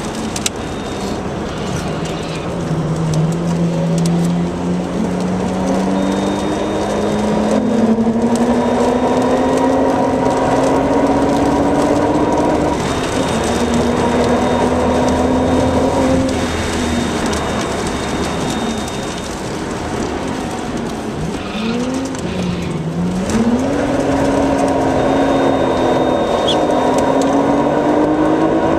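Nissan Skyline R33 GT-R's twin-turbo straight-six heard from inside the cabin at racing speed: the engine note climbs slowly through a long pull, falls back, dips and jumps several times in quick succession through downshifts, then climbs again near the end.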